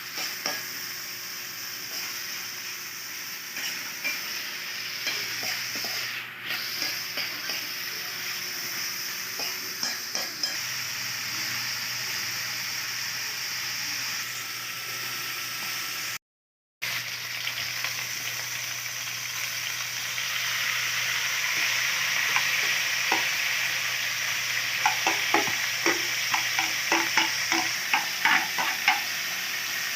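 Food frying and sizzling in a pan while a utensil stirs it, clicking and scraping against the pan; the clicks come thicker near the end. The sound drops out for a split second about halfway through.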